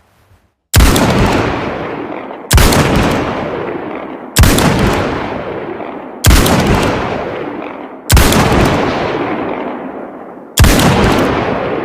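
Six shots from a Smith & Wesson Mk II Hand Ejector .455 revolver, fired one at a time about two seconds apart. Each shot is followed by a long fading echo.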